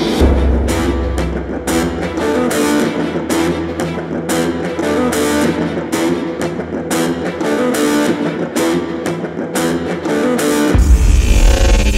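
Background music: upbeat guitar-led rock with bass and a regular beat, the low end getting heavier about eleven seconds in.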